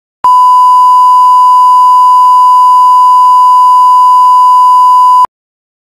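Loud, steady 1 kHz line-up test tone, the reference tone that goes with colour bars. It starts a moment in, holds one unchanging pitch for about five seconds, and cuts off abruptly.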